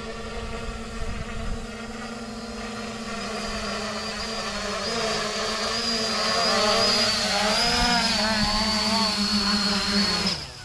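Holybro X500 V2 quadcopter's four brushless motors and propellers humming as it descends to land, growing louder as it comes down, the pitch wavering as the flight controller adjusts the motors. The sound cuts off suddenly just before the end as it touches down and the motors spin down.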